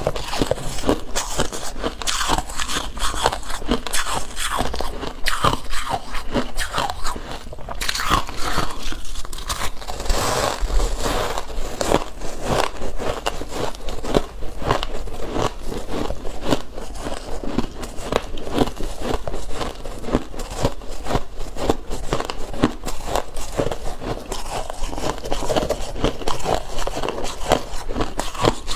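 Shaved ice being bitten and chewed: a continuous run of close, dense crunches.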